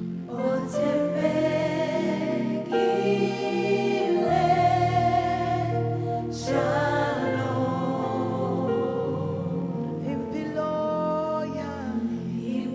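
A gospel choir singing a slow worship song in phrases, over sustained low accompaniment.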